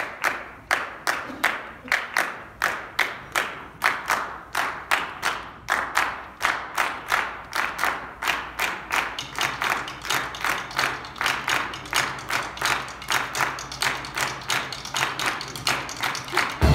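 Hands clapping together in a steady rhythm, about three to four claps a second, keeping time. The jazz band's music comes in loudly at the very end.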